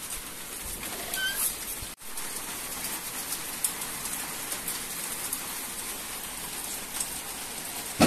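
Light rain falling, an even hiss of drops with scattered sharper drip ticks. It cuts out for an instant about two seconds in.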